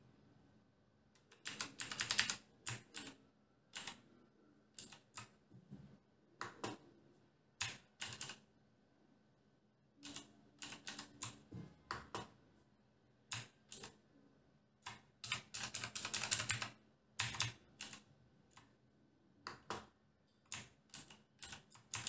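Clicks from a Cosmic Byte Sirius mechanical keyboard with clicky Otemu Blue switches. Keys and the mode knob are pressed one at a time and in short quick runs, with pauses between.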